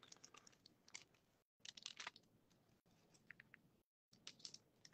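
Faint, scattered crinkling and clicking of a clear plastic blister pack being handled and picked open with the fingers.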